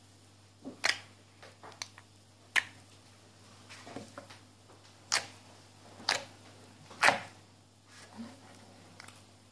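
Clear slime being squeezed and poked by hand, giving sharp wet pops and clicks, five loud ones at uneven intervals of about a second or two, with softer crackles between them.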